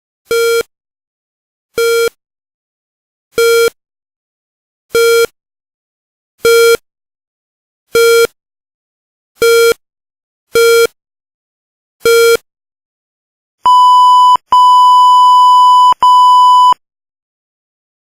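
Electronic beep sound effect: nine short, low beeps at an even pace of about one every second and a half, then a longer, higher steady tone that breaks twice.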